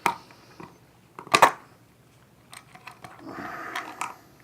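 A light switch being fitted into its electrical box: sharp clicks and knocks as it is lined up, then about a second of scraping as a mounting screw is turned.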